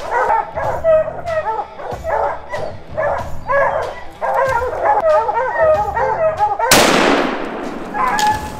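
A pack of bear hounds barking and bawling without a break at a treed bear. About seven seconds in, a single scoped hunting rifle shot goes off, the loudest sound here, and its echo dies away over about a second while the hounds keep barking.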